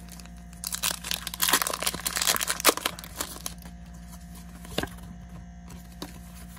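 Foil Pokémon card booster pack wrapper being torn open and crinkled: a dense run of crackling rips lasting about two and a half seconds, then a single sharp click a couple of seconds later.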